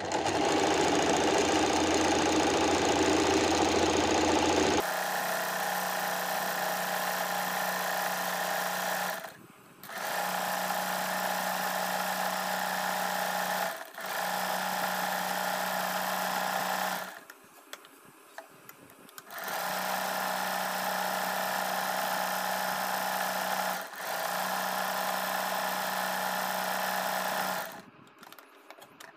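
Usha Stitch Magic electric sewing machine stitching a dense decorative embroidery stitch (stitch width 5, stitch length near zero), a steady mechanical whir. It is louder for the first few seconds, then runs evenly, stopping and restarting five times.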